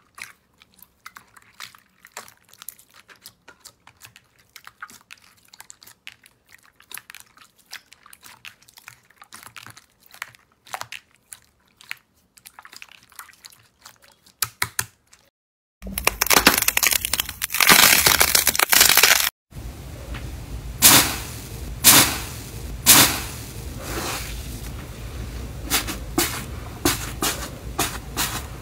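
Hands squishing and pressing slime. For the first half there are quiet sticky clicks and squelches. About halfway through, a loud hissing rush lasts a few seconds. After that come louder crackling crunches as a hand presses into slime with a crunchy crust.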